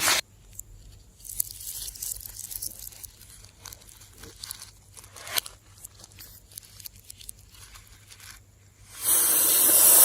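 Slime being handled, crackling and popping softly, with a few sharp clicks about five seconds in. Near the end a louder steady hiss lasts about a second and cuts off suddenly.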